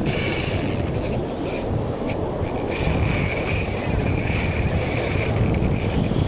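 Spinning fishing reel being cranked to bring in a hooked fish, a grinding whir that stops and starts a few times, over heavy wind noise on the microphone and surf.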